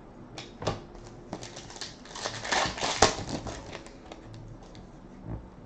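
Trading cards being handled: scattered light clicks and a rustle that swells about two to three seconds in, with one sharp click near its end.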